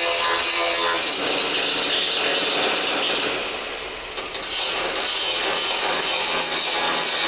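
Steady, rough abrasive noise of sanding on the steel body panels of a VW Golf Mk2, keying the surface for paint. It dips briefly a little past halfway, then picks up again.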